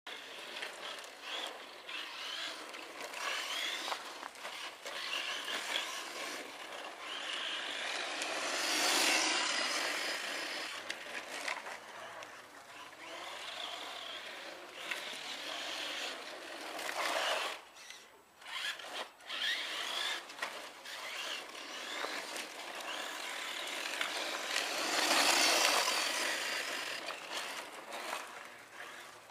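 Himoto 1:10 short course RC truck driving on gravel: its motor whine and the crunch of its tyres rise and fall as it comes and goes. The sound swells about nine seconds in and again about twenty-five seconds in, and briefly drops away around eighteen seconds.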